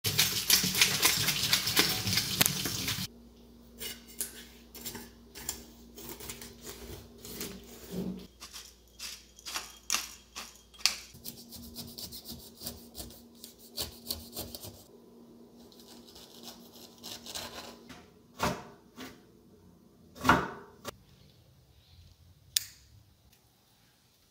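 Tap water running into a stainless steel sink for about three seconds while a knife scrapes scales off a whole fish. Then a long knife cuts and scrapes through pineapple rind on a wooden chopping board, many short scrapes and soft knocks, with a few louder knocks near the end.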